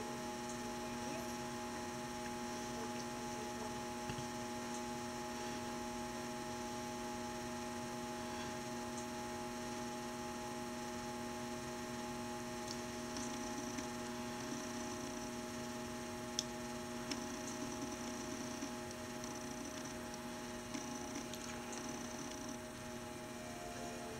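Steady electrical mains hum, an even buzz that holds unchanged, with a few faint clicks and light rustling in the second half.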